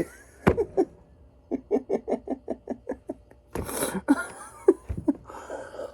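A man laughing in a quick run of short voiced bursts, about six a second, with sharp breaths around it.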